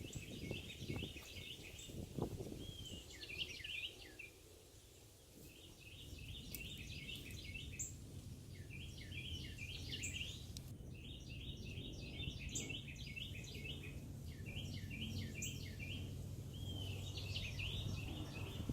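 A songbird singing, repeating short phrases of quick chirping notes every couple of seconds. A few low thumps sound in the first two seconds, and a steady low rumble sets in about six seconds in.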